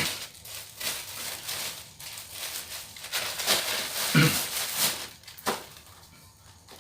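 Paper and plastic packaging rustling and crinkling in irregular bursts as a parcel of diploma blank sheets is handled and opened, with a short low sound about four seconds in.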